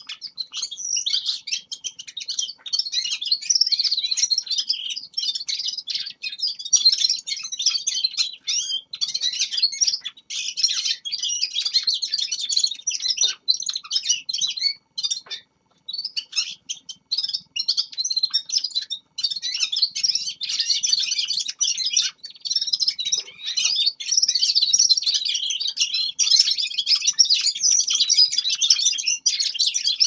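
Several caged finches singing and twittering in a dense, rapid, high-pitched jumble, with a brief break about halfway through.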